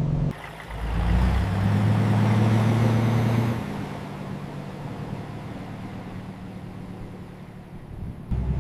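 Truck engine running with road noise, louder for the first few seconds, then easing to a quieter steady hum.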